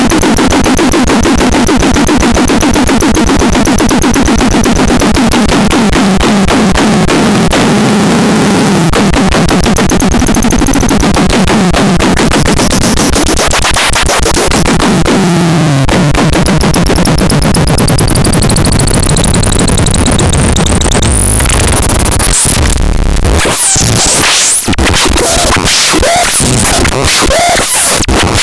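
Loud, harsh electronic noise from a MELULAITE noise instrument: a dense buzzing pulse train with wavering and gliding pitches and a thin high whistle. After about 21 seconds it breaks into choppy, stuttering bursts with fast sweeps.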